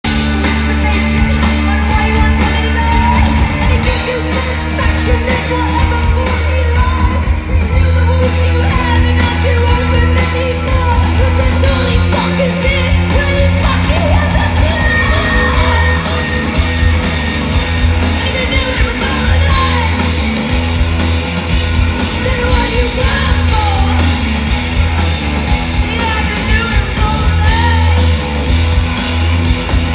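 Live rock band playing loud through a stage PA. A woman sings lead over electric guitar, heavy bass and drums.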